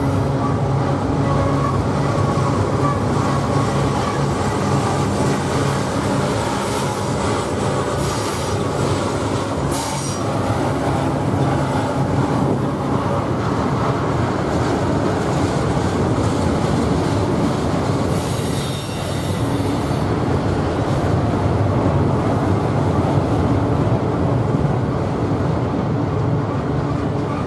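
BNSF double-stack intermodal freight train rolling past, a steady rumble of well-car wheels on the rails. A few short high wheel squeals come through about a third of the way in and again past the middle.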